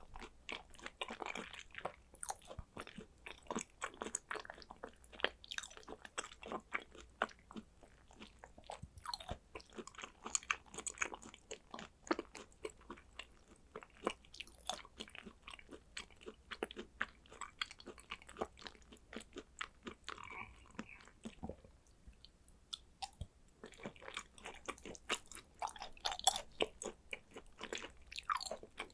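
Close-miked chewing of thinly sliced raw hanwoo beef. A rapid run of wet mouth clicks and smacks goes on, with a brief quieter pause a little past two-thirds of the way through.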